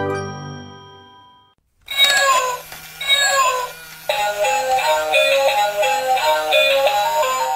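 Battery-operated blue cat dancing toy starting its song: after the previous tune fades out and a brief gap, two short phrases of a high-pitched electronic voice, then a bleepy electronic melody over a steady low note from about four seconds in.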